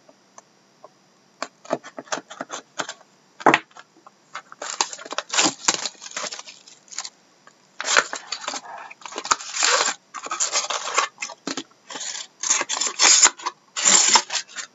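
Wrapping on a box and packs of Upper Deck SP Game Used hockey cards being torn open and crinkled. There are a few light clicks and handling sounds at first, then repeated tearing and rustling from about four seconds in.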